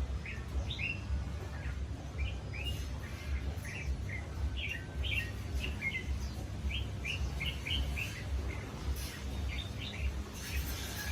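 Small birds chirping, many short calls a second throughout, over a steady low rumble.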